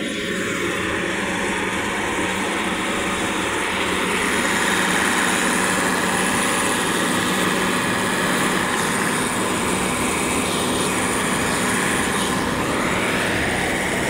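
Combine harvester running under load close up, its engine and threshing machinery making a loud, steady mechanical drone that grows a little louder about four seconds in.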